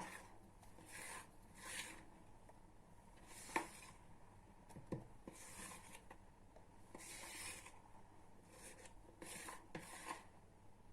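Faint, intermittent rubbing sounds, about eight short strokes, with one small click about three and a half seconds in.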